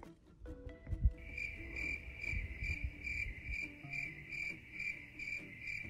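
An insect chirping in a steady high-pitched pulse, about three chirps a second, starting about a second in. A soft low thump comes about a second in.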